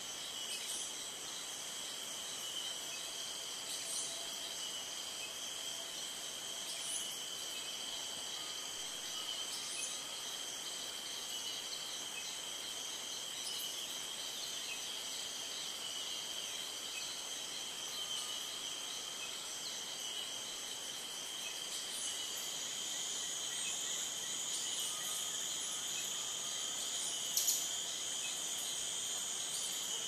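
A steady chorus of insects trilling at several high pitches at once, swelling slightly in the last third. A few faint short bird notes sound now and then, and there is a single sharp click near the end.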